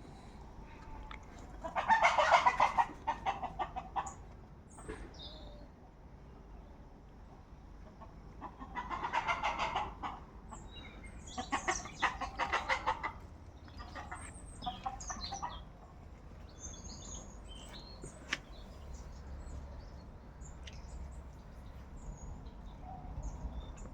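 Chickens clucking in several bouts of rapid, pulsing calls, the loudest about two seconds in, with quieter runs around the middle.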